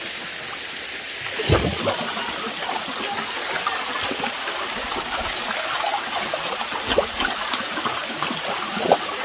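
Waterfall and stream water rushing steadily. A few sudden louder sounds stand out, the strongest about a second and a half in and others near seven seconds and near the end.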